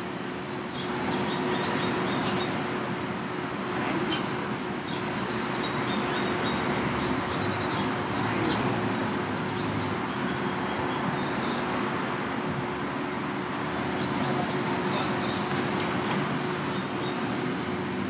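Small birds chirping in several short bursts over a steady outdoor hum of traffic-like noise.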